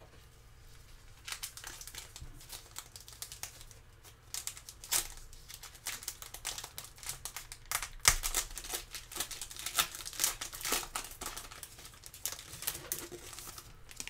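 Foil trading-card pack wrapper crinkling and crackling as gloved hands handle it and tear it open, in irregular bursts of crackles with one sharp, loud crackle about eight seconds in.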